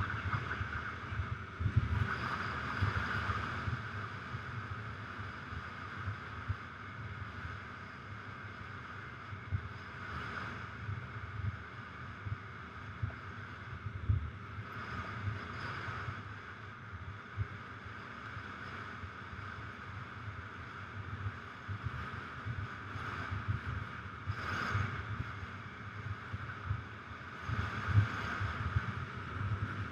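Adventure motorcycle riding along a sandy dirt track: engine running under heavy wind noise on the microphone, with irregular low thumps from the bike jolting over the rough surface.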